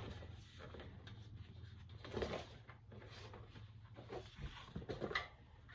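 Hands working a fat-tire bike inner tube into the tire: faint, irregular rubbing and scraping of rubber, with a few louder scrapes about two seconds in and near the end.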